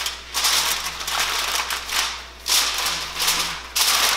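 Aluminium foil crinkling in repeated bursts as it is pressed down and crimped around the edges of a baking pan.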